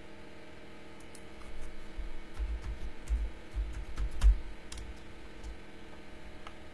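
Computer keyboard being typed on: a short run of keystrokes, dull knocks with light clicks, starting about a second and a half in and stopping about four seconds later.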